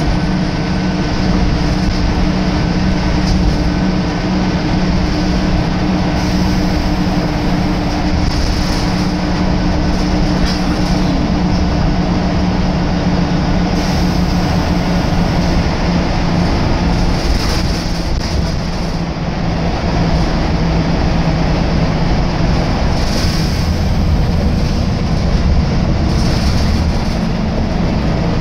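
Scania L94UB single-deck bus heard from inside the saloon while under way: the rear-mounted diesel engine and drivetrain give a steady low drone, mixed with road and tyre noise.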